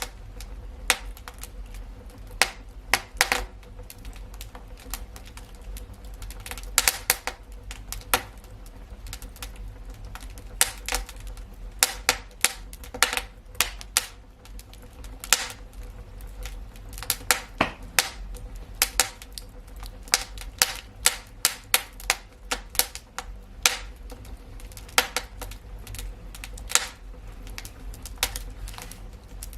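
Wood fire crackling: irregular sharp pops and snaps, some in quick clusters, over a low steady rumble of the burning fire.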